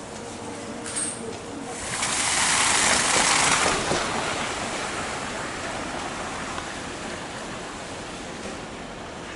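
A vehicle passing on a slushy street: a hissing rush of tyres on wet snow that swells about two seconds in, peaks, then slowly fades away.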